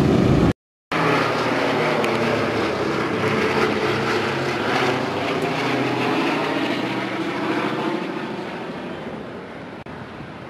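Boeing B-17 Flying Fortress's four radial piston engines droning as the bomber flies overhead, a steady multi-engine propeller drone. The sound cuts out briefly about half a second in and fades over the last couple of seconds.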